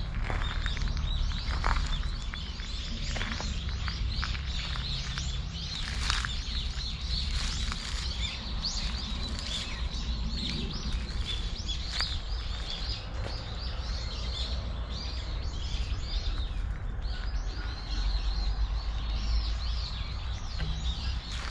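Small birds chirping and twittering continuously, with footsteps crunching through dry fallen leaves and a steady low rumble underneath.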